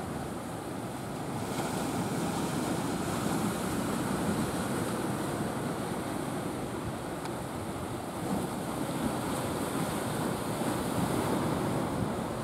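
Steady rushing of surf and wind buffeting the microphone at a river mouth, growing a little louder about a second and a half in.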